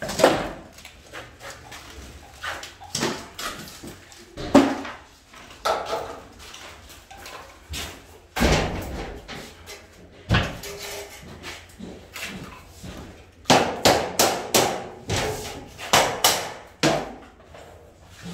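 Irregular knocks, thumps and scrapes from sheets of cement board being handled and set down in a bare room, with a quick run of knocks about two-thirds of the way through.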